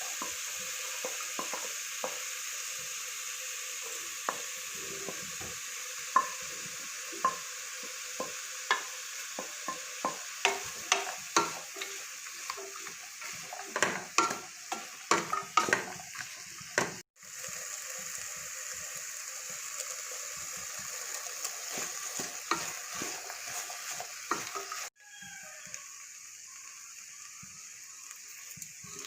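Food sizzling as it fries in a pan, stirred with a spoon that clicks and scrapes against the pan, most busily in the middle stretch. The sizzle cuts off abruptly twice and starts again, softer after the second break.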